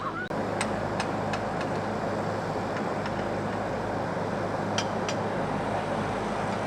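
Nilgiri Mountain Railway train running: a steady rumble with a low hum and a few sharp clicks, about three near the start and two about five seconds in.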